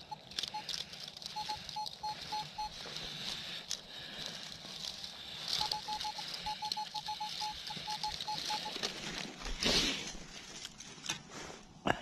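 Metal detector beeping in short, evenly spaced pips at one steady pitch, in two runs a few seconds apart, a clean non-iron target signal. Rustling and scraping of soil and grass under the beeps, louder briefly near the end.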